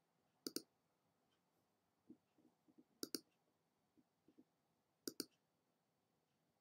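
Computer mouse button clicked three times, about 2.5 seconds apart, each click a quick press-and-release pair. Fainter soft ticks fall between the clicks.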